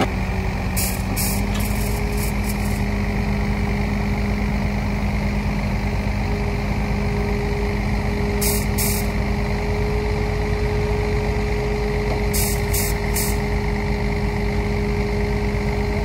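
Heavy diesel earthmoving machinery running steadily, with a constant low hum. Short clusters of sharp, high clicks come through about a second in, around the middle and again later.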